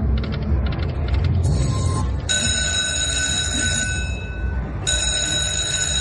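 Dragon Link 'Golden Century' slot machine: a rapid ticking as the reels spin, then two bell-like ringing chimes of about two seconds each, one about two seconds in and one near the end, marking a win. A steady low rumble runs underneath.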